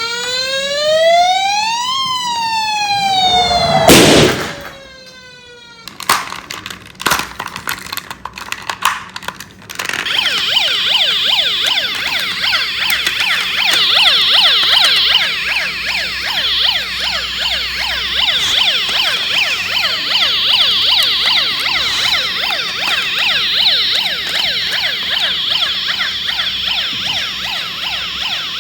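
Electronic toy emergency-vehicle sirens. The first is a slow wail that rises for about two seconds and falls again, cut by a loud bang about four seconds in. After a few clicks, a fast warbling siren starts about ten seconds in and keeps going.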